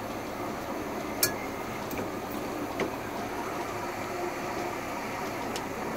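Boat engine idling steadily while it warms up, with a sharp click about a second in and a fainter one a little later.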